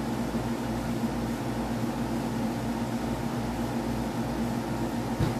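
Steady machine hum with a low drone and a few fixed tones, and a single dull thump near the end.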